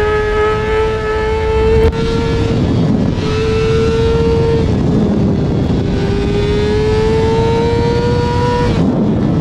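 Kawasaki ZX-6R inline-four sportbike engine through an Arrow titanium race exhaust, pulling hard at high revs with a rising pitch. The tone breaks briefly twice, picking up at a lower pitch after the second break as at a gear change, and cuts off near the end as the throttle closes. Wind rushes underneath.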